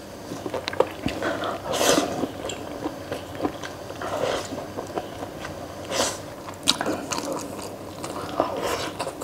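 Close mouth sounds of a person eating braised noodles with green beans: slurping noodles and wet chewing, with a few louder sharp slurps or bites.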